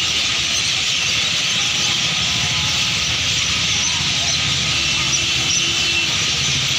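Dense, steady chirping of a huge flock of birds crowded into one tree, thousands calling at once, over a low engine rumble from traffic.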